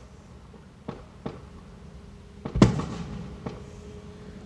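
Aerial firework shells bursting: four sharp bangs. The loudest comes a little past halfway and leaves a lingering echo.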